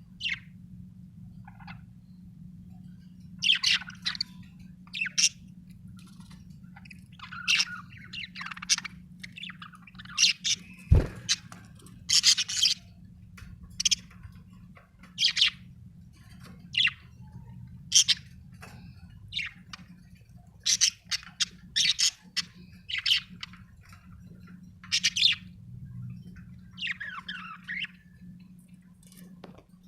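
Budgerigar chirping in short, irregular calls over a steady low hum, with one sharp click about eleven seconds in.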